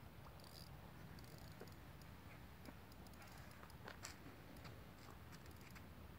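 Near silence with faint, irregular clicks and ticks from a spinning reel being worked while a hooked carp is played on a bent rod.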